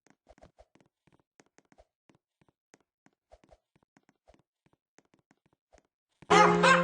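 Faint scattered clicks and taps, then keyboard music with a piano sound starts suddenly near the end.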